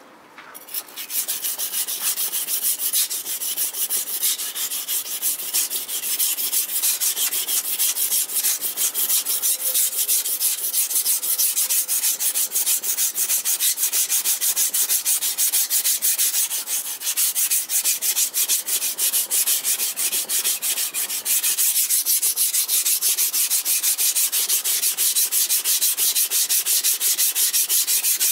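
Tosa-style multipurpose kitchen knife being sharpened on a wet whetstone: quick, steady back-and-forth strokes of the steel blade scraping across the stone, a gritty rasp that starts about a second in, with one short break about three-quarters of the way through.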